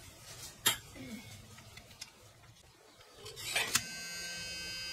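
Plastic clicks and handling of a Mini DV cassette in an opened two-way tape rewinder. Near the end the rewinder's small electric motor starts and runs with a steady whine, spinning the cassette's reels.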